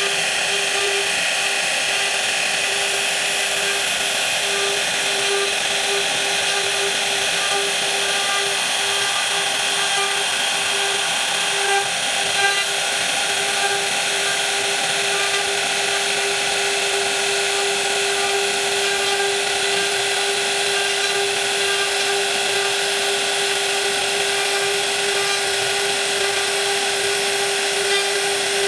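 A high-speed electric woodworking power tool running steadily, a constant high whine with a hiss of cutting over it.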